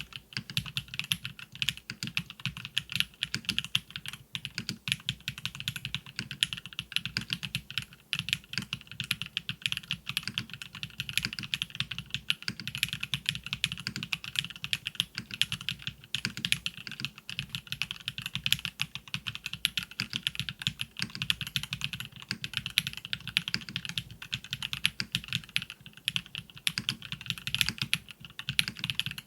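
Continuous fast typing on a KBDfans KBD8X MKIII mechanical keyboard fitted with Kailh BCP factory-lubed linear switches, many keystrokes a second, with a low thock under a brighter clack.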